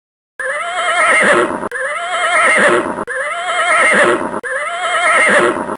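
Horse whinnying: four loud whinnies in a row, each rising with a fast quaver in pitch and then falling, separated by abrupt cuts.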